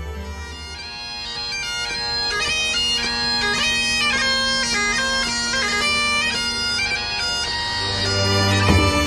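Great Highland bagpipe played solo: a quick-moving tune over one steady drone. Soft background music fades out at the start and comes back near the end.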